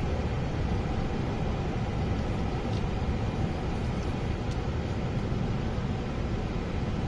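Steady rumble of a car driving on a paved road, heard from inside the cabin: tyre and engine noise with no change in pace.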